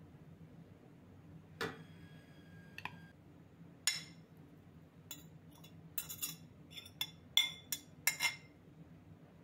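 A metal fork clinking and scraping against a china plate as shredded chicken is pushed off it into a stainless steel pot. There is a quick run of sharp clinks over the second half. An earlier single clink rings on briefly.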